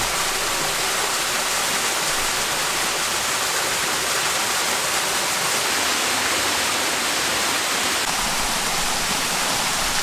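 Rushing water: a steady, even hiss with no breaks.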